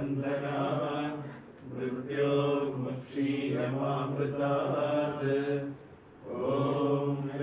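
A voice chanting a Sanskrit devotional mantra in a steady, sing-song recitation of long phrases, with two short breaths between them.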